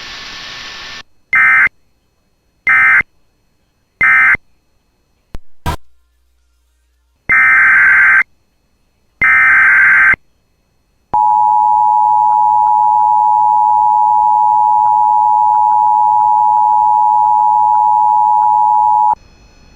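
Emergency Alert System digital data: three short chirping SAME end-of-message bursts, then two longer SAME header bursts. These are followed by the two-tone EAS attention signal, a steady pair of pitches held for about eight seconds, which marks the start of a new warning.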